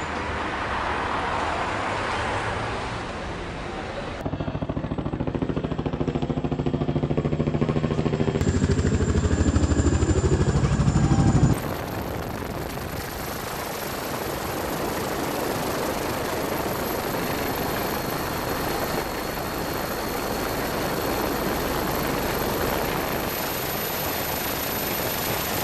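Steady helicopter engine and rotor noise. A louder stretch with a low, fast-pulsing throb cuts off abruptly about eleven seconds in, leaving an even rushing din.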